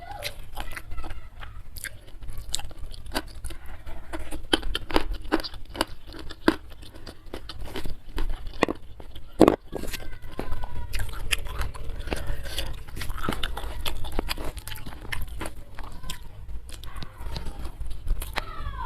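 Close-miked chewing and crunching of food in the mouth, with irregular crisp bites and one sharp crunch about halfway through.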